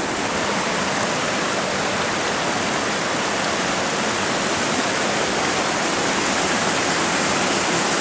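Waterfall pouring into a rocky plunge pool, a steady rushing of water that holds even throughout.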